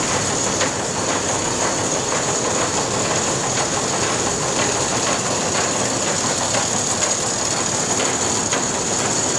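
Belt-driven line-shaft machinery of an old grain mill running: overhead shafts turning big pulleys with flat belts, a really noisy, steady mechanical clatter with faint ticks and a constant high whine.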